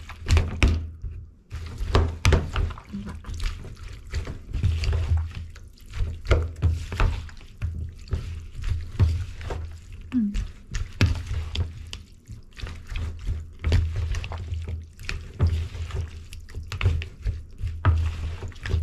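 Metal spoon tossing seasoned chicken feet in a plastic bowl: a run of irregular wet squelches, clicks and knocks of the spoon against the bowl.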